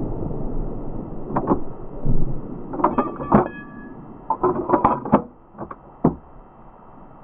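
Tikka M55 .243 bolt-action rifle being handled after a shot: a string of sharp metallic clicks and clacks in short clusters, typical of the bolt being worked to eject the spent case and chamber the next round. Under the first two seconds a low rumble dies away, the tail of the shot just fired.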